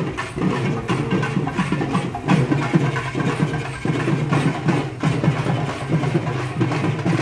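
Urumi melam drum ensemble playing: a steady low drone under dense, irregular drum strokes.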